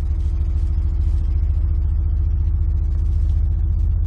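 Dayton Audio Epique 7-inch subwoofer with matching passive radiators playing a steady low test tone from a signal generator, being run in and shaken out.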